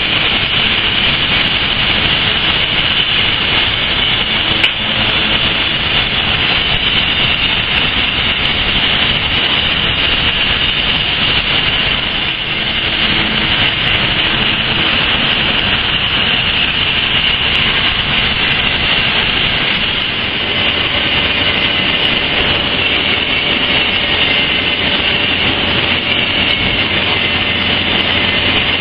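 Loud, steady noise of industrial plant machinery running without a break. About twenty seconds in, a low hum and a steady tone join it.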